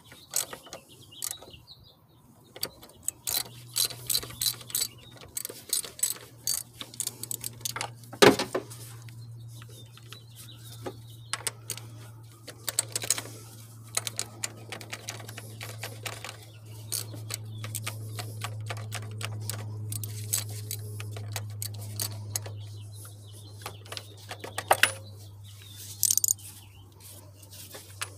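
Hand tools and small metal parts clicking and rattling as they are handled on an engine, with a single loud sharp clack about eight seconds in. A steady low hum runs underneath from about three seconds in.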